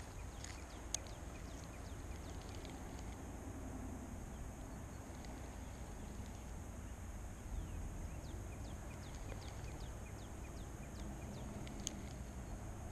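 Faint lakeside ambience: a low wind rumble on the microphone with many small birds chirping faintly, and a sharp click about a second in and another near the end.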